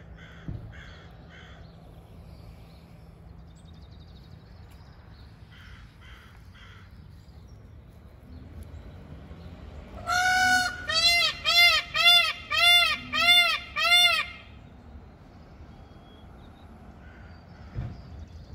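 Indian peafowl calling: one longer honking note, then a quick run of about seven short, arched honks, about two a second, lasting some four seconds.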